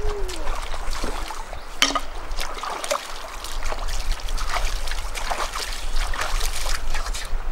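Shallow river water splashing and trickling, irregularly, as a person wades barefoot through it and stirs and scoops it with her hands.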